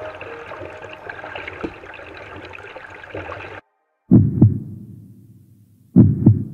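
Background music cuts off about three and a half seconds in. Then a heartbeat-like double thump sounds twice, low and booming, each pair dying away over about a second.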